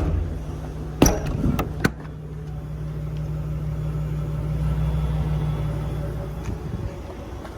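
A few sharp knocks about a second in, then a vehicle engine's low hum that grows louder and fades away over several seconds.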